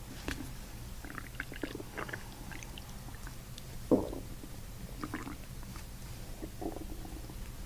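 A person's stomach and intestines gurgling in short, irregular bubbly squelches, with a louder gurgle about four seconds in: gas and fluid shifting and releasing in the gut as the abdomen is manipulated.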